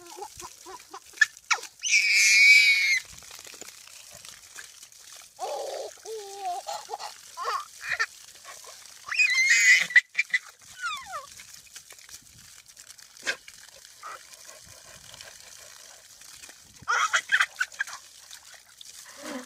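A baby's high-pitched squeals and shrieks of laughter: three loud ones about two, nine and seventeen seconds in, with a lower drawn-out cry around six seconds. Short clicks and snaps come in between.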